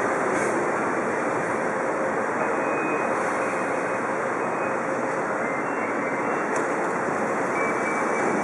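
Cobrasma-built São Paulo Metro train (Frota C) pulling into the platform and slowing to a stop, a steady rumble of wheels and running gear with a few faint high squeals.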